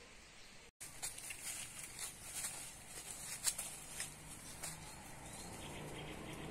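Light rustling and crackling of grass and low plants underfoot as someone walks through undergrowth, with scattered sharp snaps. The sound cuts out completely for an instant shortly before the rustling begins.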